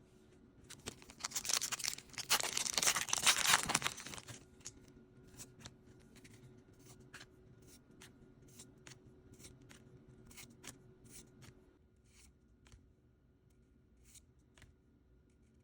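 Foil Pokémon booster pack wrapper being torn open, a crackling tear for about four seconds, followed by faint scattered clicks and rustles of handling.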